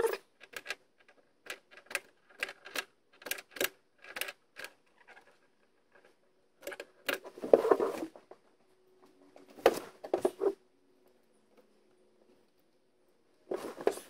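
Small clicks and rattles of hands working crimped wire terminals and a plastic rocker switch: a quick run of light clicks for the first few seconds, a louder rustle of handling near the middle, and a few more clicks and rattles later.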